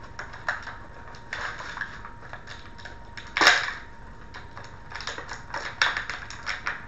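Clear plastic action-figure packaging crackling and clicking in irregular snaps as it is handled and opened, with one louder crack about three and a half seconds in.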